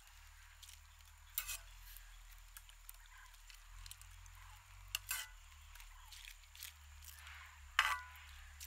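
Cooking sounds: a faint steady hiss broken by a few sharp knocks and clicks of utensils, the loudest near the end.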